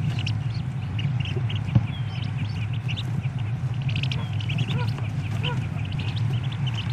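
Wood duck ducklings peeping inside a nest box: many short, high peeps overlapping constantly, over a steady low hum. A few lower, falling calls come through a little past the middle.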